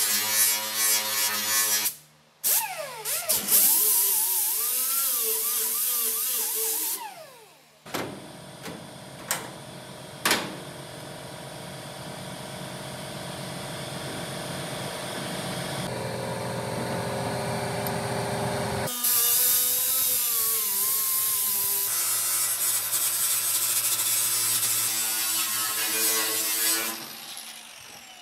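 Grinder with a small cut-off disc cutting the sheet steel of a 1965 VW Beetle's lower hinge pillar and wheel-well area. Its whine rises and falls as the disc bites and spins down. It runs in several bursts, with short stops near the start.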